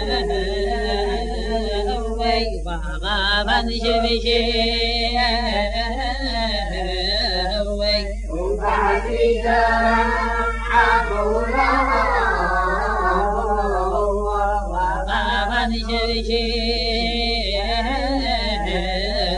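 Yemenite Jewish shirah sung unaccompanied by a man in the Sanaa style, with a wavering, ornamented melody and a steady low hum underneath from the old recording.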